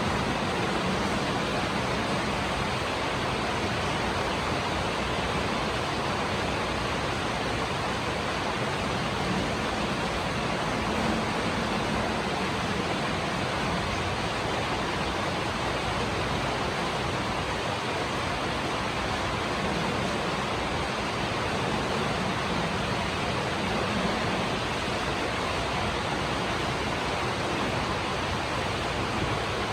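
Steady rain falling, an even noise with no let-up.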